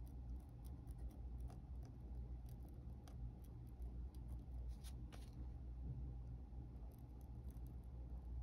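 Fountain pen nib scratching short, quick hatching strokes on textured paper, a scatter of faint scratches over a steady low hum.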